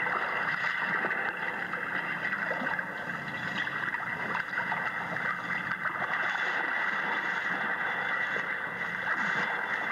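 A steady, muffled rushing noise with a faint crackle through it.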